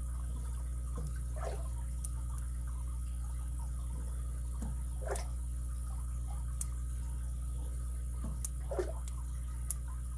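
Lock pick working the pins of a vintage Alpha padlock's five-pin core, making about half a dozen small, sharp, scattered clicks over a steady low hum.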